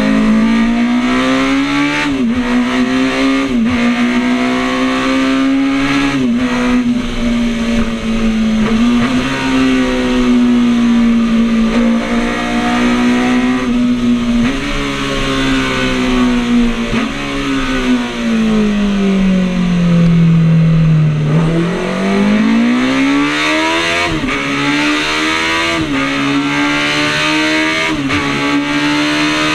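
Classic Honda racing motorcycle engine running hard at high revs, heard from on board with wind noise. The engine note dips briefly every few seconds at the gear changes, sinks slowly as the bike slows about twenty seconds in, then climbs again as it accelerates.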